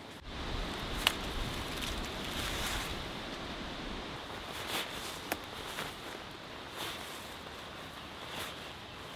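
Steady outdoor background rush with scattered rustles and a few sharp clicks from camping gear being handled as it is packed away; the loudest click comes about a second in.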